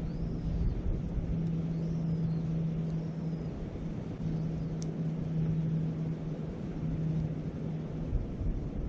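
Wind rumbling on the microphone beside a campfire and river, under a steady low hum that drops out twice. Faint high chirps come in the first few seconds, and one sharp pop about five seconds in.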